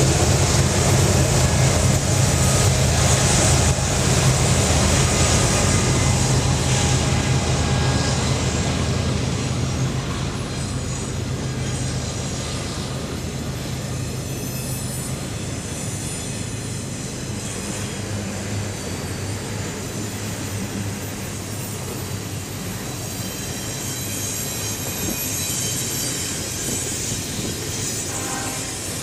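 BNSF diesel-electric locomotives passing with a loud low engine drone that fades over the first fifteen seconds or so. The double-stack intermodal well cars then roll by with a steady rumble of wheels on rail and faint, intermittent thin wheel squeal.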